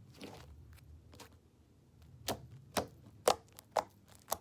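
Sticky slime being pressed and pulled by hand, making sharp clicking pops: five of them, about two a second, starting about halfway through.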